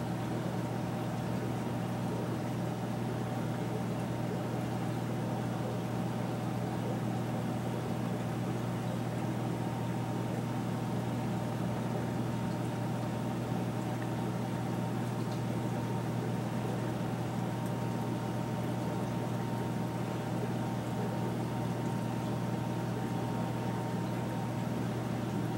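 A reef aquarium's pumps running, a steady low electrical hum with a faint even hiss over it.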